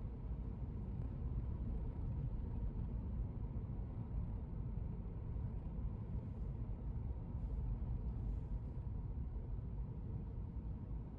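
Steady low road and engine rumble heard inside a moving car, with a few faint ticks in the middle.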